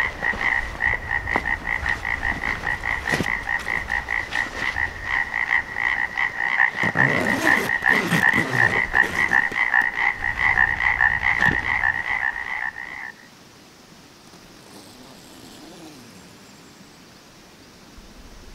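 Frogs calling in a steady chorus, a fast run of pulsed croaks that cuts off suddenly about 13 seconds in, leaving only faint outdoor ambience. A few knocks and rustles sound in the middle.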